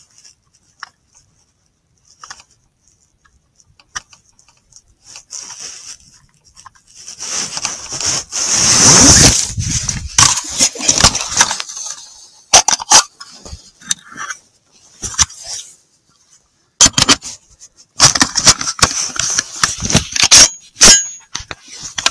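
Handling noise close to the microphone of a recording rifle scope: a loud rush of rustling about eight seconds in, then a string of sharp clicks and knocks as the rifle and scope are moved about.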